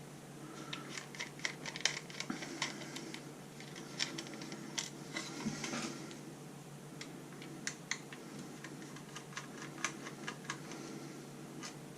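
Small flathead screwdriver working Torx screws out of a hard drive's mounting bracket: a run of light, irregular clicks and scrapes of metal on metal.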